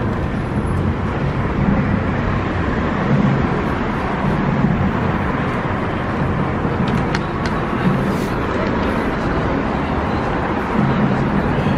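Busy city street ambience: steady traffic noise from passing cars, with a low rumble that swells and fades and a few faint clicks.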